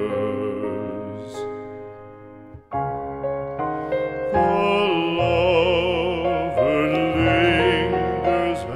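Background music: a classical art song, with a singer's held notes in vibrato over piano chords.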